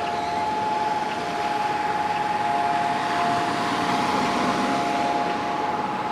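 Civil defense siren holding one steady tone: the Israeli Memorial Day siren that marks the minute of silence for the fallen. A steady rushing hiss lies underneath.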